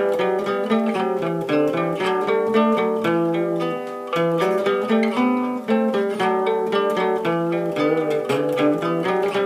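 Old Soviet steel-string acoustic guitar picked with a handmade plectrum, playing an improvised run of quick plucked notes and double-stops.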